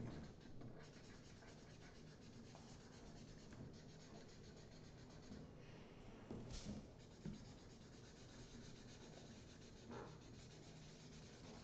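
Faint scratching of felt-tip markers drawing on paper, with one brief louder scrape partway through.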